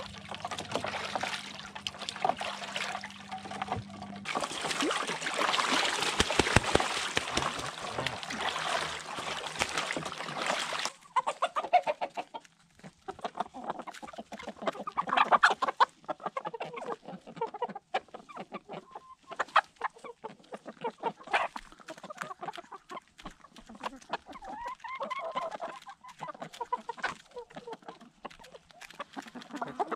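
A goose splashing as it bathes in a tub of water, then, after about eleven seconds, a flock of hens clucking softly while pecking grain from a hand, with many quick pecking ticks.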